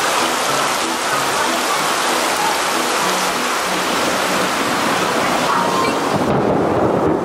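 Steady rain falling, an even hiss. About six seconds in, a low rumble of approaching thunder begins.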